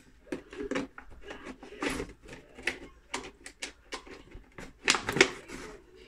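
Thin plastic soda bottle crackling and clicking as a metal spoon is worked through holes cut in its sides, in a run of irregular sharp clicks. There are a couple of louder knocks about five seconds in.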